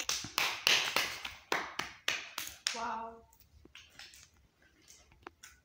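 Sharp taps and clicks from a puppy scrambling about on a hard tiled floor, a quick run of them that thins out after about three seconds, with a brief vocal sound near the middle.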